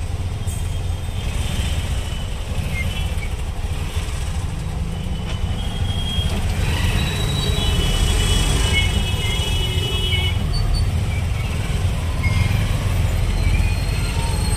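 Busy market street traffic: a steady low rumble of engines and passing vehicles, with a few short high-pitched tones a little past the middle.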